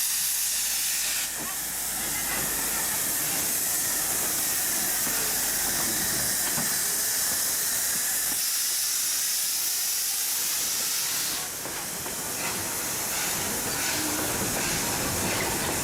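Steady, loud hiss of steam from a narrow gauge Victorian Railways Na class steam locomotive, No. 6A, standing with steam escaping.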